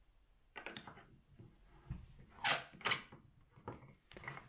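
A Curta mechanical calculator being slid into its cylindrical canister and the canister closed: short scraping and rubbing sounds of the calculator body against the case, a light knock about two seconds in, and two louder brief swishes around two and a half to three seconds.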